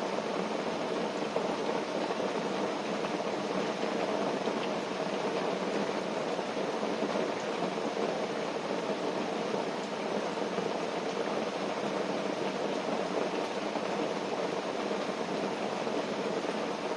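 Steady rain falling on a tent, an even hiss without breaks or single drops standing out.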